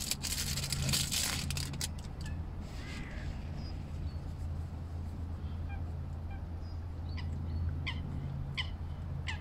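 Water birds calling across the lake, a quick series of short honking calls about two a second from about seven seconds in. Before them, a couple of seconds of rustling and clicking as a small plastic remote control and lamp are handled, over a steady low hum.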